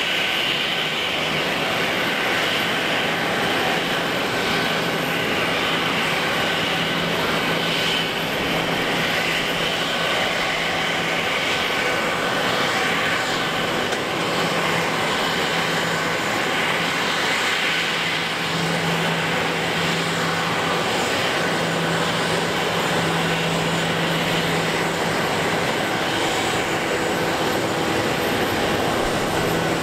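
Airbus A340-300's four CFM56 turbofan engines running at low taxi power: a steady jet noise with a high whine.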